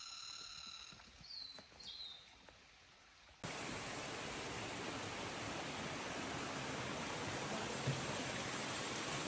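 Two short, quick chirps in a quiet forest. About three and a half seconds in, they are cut off abruptly by the steady rushing noise of flowing mountain water, a stream or waterfall.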